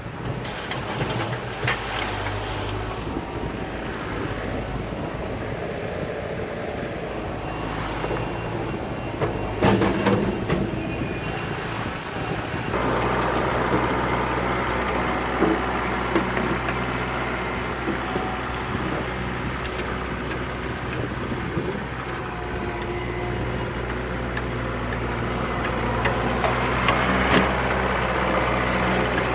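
Compact tractor backhoe's diesel engine running steadily while digging and backfilling, with a few knocks from the working gear. About halfway through, the engine picks up speed and runs louder.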